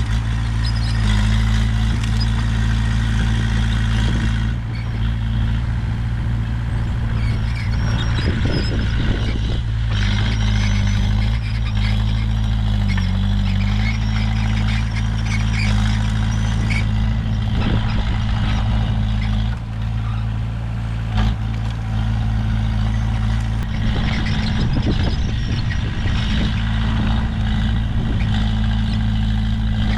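Komatsu bulldozer's diesel engine running steadily, its pitch dipping briefly about halfway through. Bouts of rattling come about eight seconds in and again near the end.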